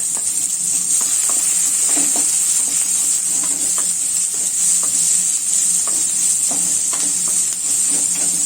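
Onion frying in hot oil in a kadai, a steady sizzle, with a spatula scraping and clicking against the pan as it is stirred.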